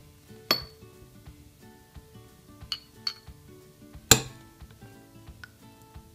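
Metal spoon clinking against a ceramic bowl and a small glass jar as thick blackberry jam is spooned into the jar: a handful of sharp clinks, the loudest a little after four seconds in. Soft background music plays under it.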